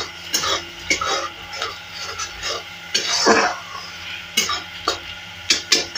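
Metal spatula scraping and stirring thick masala around a metal kadhai, in irregular scraping strokes, with one longer, louder scrape about three seconds in.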